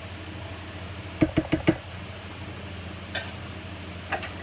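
Metal cookware knocking as rice is emptied from a stainless steel pot into a pan: four quick knocks a little over a second in, then two lighter clinks later. A steady low hum runs underneath.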